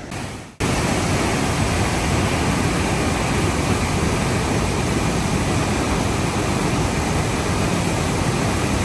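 Steady rush of fast-flowing river water, starting abruptly about half a second in.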